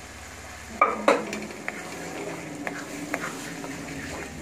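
Wooden spatula stirring and scraping a thick mashed-vegetable bhaji in a kadhai while it fries, with two sharp knocks against the pan about a second in and lighter knocks after.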